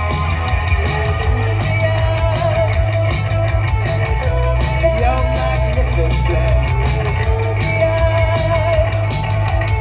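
Live gothic rock band playing, heard from the crowd: electric guitar and bass over a steady drum beat.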